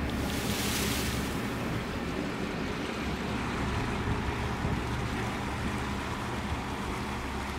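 Ocean surf washing at the shore, with wind buffeting the microphone; a hissing rush swells in the first second or so, then the wash runs on steadily.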